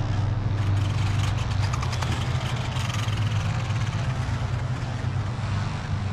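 The river's current rushing, with a steady low hum beneath it.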